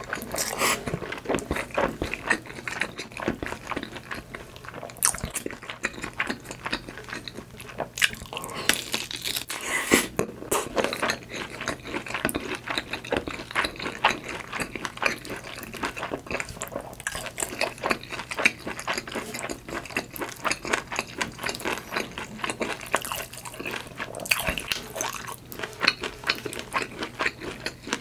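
Close-miked mukbang eating: a person chewing and biting food, with many small wet mouth clicks, busier about eight to ten seconds in and again near the end.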